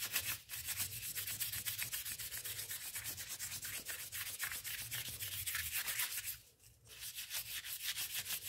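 Wet 2,000-grit sandpaper rubbed by hand in quick back-and-forth strokes over a damaged spot on a metal truck wheel rim, a fast, even rhythm of strokes with a short pause about three-quarters of the way through.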